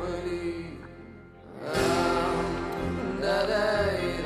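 Background music with a voice singing a slow melody over sustained notes; it drops away briefly about a second in, then swells back.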